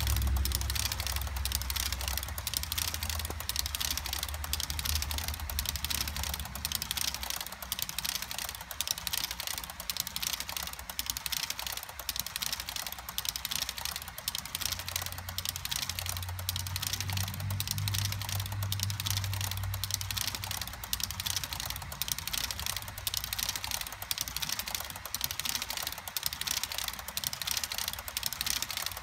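HO scale model tank cars rolling past on the track, their wheels making a fast, steady clicking over the rail, with a low rumble that swells near the start and again about halfway through.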